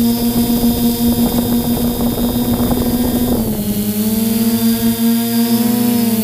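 Multirotor drone's motors and propellers whining steadily. About three and a half seconds in the pitch drops and then shifts as the drone changes speed, with the separate motors drifting apart in pitch.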